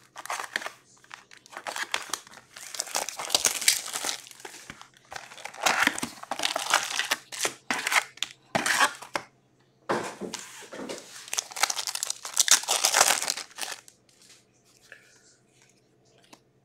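Plastic wrap and foil card packs crinkling and tearing as a Skybox Metal Universe hockey card box is unwrapped and its packs ripped open. The sound comes in bursts of a second or two with short pauses and dies away about 14 seconds in.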